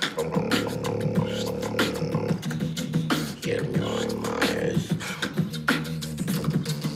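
Mouth-made beatboxing: a fast vocal beat of kick, snare and hi-hat sounds over held low tones that stop and restart every second or two.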